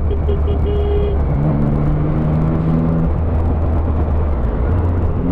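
Motorcycle at steady highway speed in the rain: a constant low engine and road drone with a hiss of tyres and spray on the wet road while it passes trucks.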